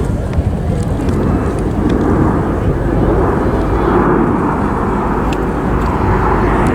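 Jet noise from a formation of BAE Hawk T1 trainers making a display pass, a loud steady rush that builds over the first few seconds and then holds.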